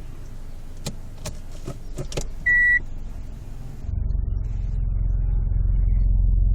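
A car with a few clicks and a short electronic beep, then about four seconds in a low droning grind starts up and grows louder, the grinding noise that comes from underneath this car when it is put in Drive or Reverse.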